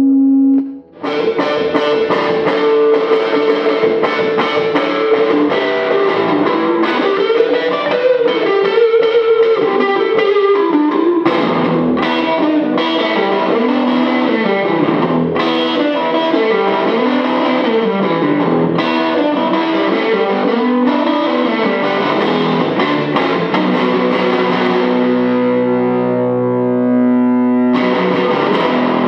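Distorted electric guitar playing a bluesy riff of rising and falling notes, after a brief break about a second in. Near the end it settles into longer held chords.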